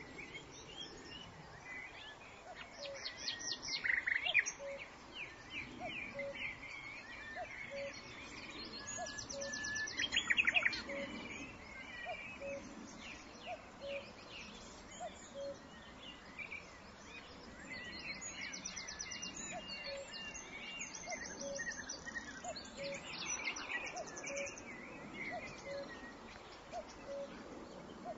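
Birds chirping and giving rapid high trills, with a short low note repeated about once a second.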